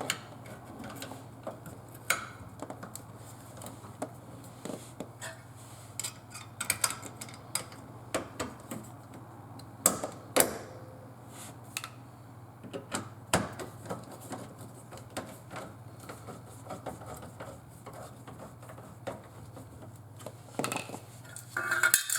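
Scattered small clicks, taps and light knocks of hands connecting electrical wires in a dishwasher's junction box, with a few sharper knocks about ten seconds in, over a steady low hum.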